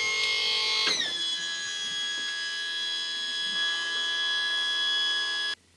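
Outboard motor running with a steady, high, whining note; about a second in its pitch drops, then holds level until it cuts off suddenly near the end.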